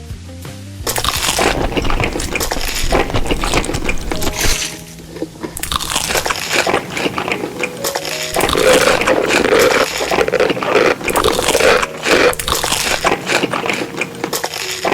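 Close-miked mukbang eating sounds: loud, dense crunching and chewing of food in two long stretches, with a short lull about five seconds in, over soft background music.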